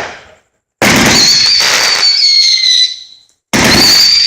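Pyro Demon "Show in a Box" firework cake firing: a bang fades out at the start, then two shots go off, about a second in and about three and a half seconds in. Each is a loud rushing blast carrying a high whistle that drops slightly in pitch.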